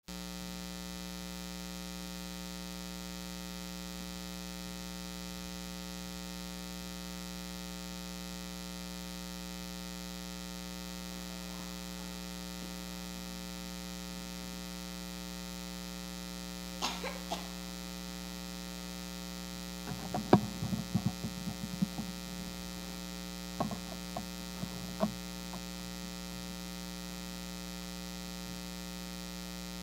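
Steady low electrical mains hum from the sound system. A few sharp clicks come at about the middle, then a cluster of knocks and rattles a little later, the loudest of them about two-thirds of the way in.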